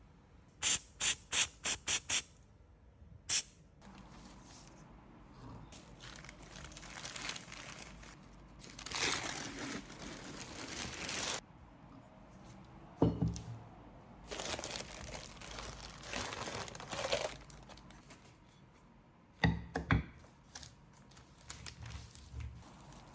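Houseplant repotting handling sounds: about six quick sprays of a hand mister early on, then stretches of rustling and scraping of potting soil, with two sharp knocks like a pot being set down.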